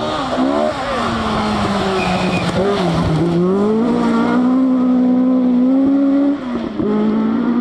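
Rally car engine at high revs, its pitch dipping about three seconds in, then climbing steadily before a brief break near the end, when it picks up again.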